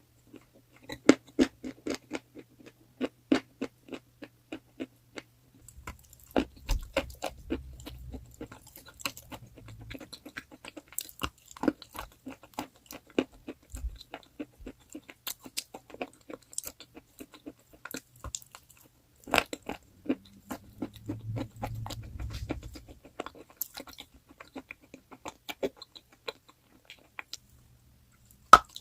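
Crunchy chalk being bitten and chewed close to the microphone: a dense run of sharp, irregular crackles and crunches, with a couple of short pauses.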